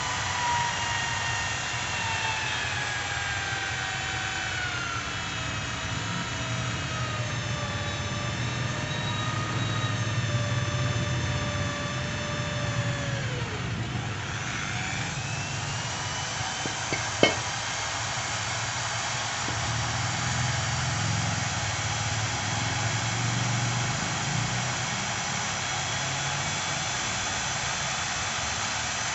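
Corded electric drill mounted in a homemade bench drill stand, running while drilling into a metal workpiece. Its motor whine sinks slowly in pitch as the bit loads it, drops sharply to near a stall about halfway through, then picks back up and runs steady. A single sharp click a few seconds after it recovers.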